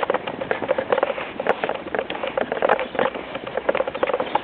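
Footsteps crunching through deep fresh snow: a steady run of irregular crunches, a couple to a few per second.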